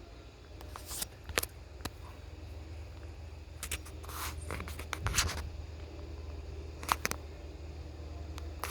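Scattered clicks and short rustles, with a low rumble underneath, typical of a handheld camera being handled while walking.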